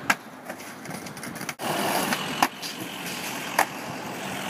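Skateboard clacking hard on the pavement as a trick is popped and landed, right at the start, over steady city street traffic noise. Two more sharp knocks come later.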